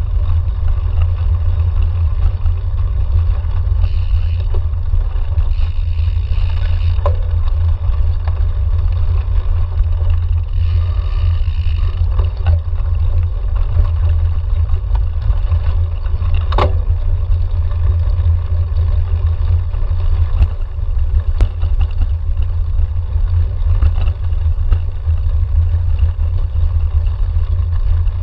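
Cyclocross bike riding over a bumpy grass course, heard as a steady low rumble of wind and vibration on a handlebar-mounted camera, with a few sharp clicks and knocks from the bike.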